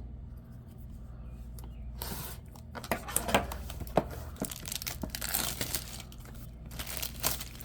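Plastic shrink-wrap being torn and peeled off a sealed trading-card box, crinkling and crackling, starting about two seconds in.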